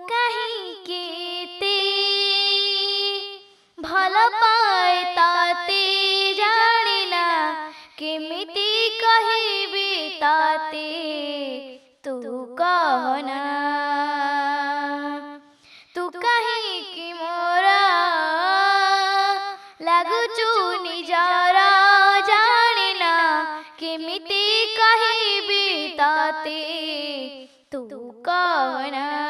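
A girl singing solo into a studio microphone, in long ornamented phrases with short breaks between them, with no accompaniment heard.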